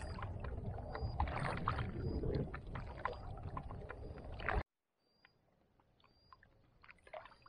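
Water splashing and lapping around a kayak with wind buffeting the microphone, full of small clicks and drips, with a few short high chirps over it. About four and a half seconds in it cuts off abruptly to near quiet, leaving only faint drips and chirps.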